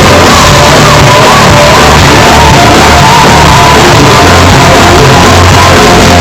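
Metal band playing live: loud distorted guitars, bass and drums with a sung vocal line over them. The recording is overloaded and harsh, close to its maximum level.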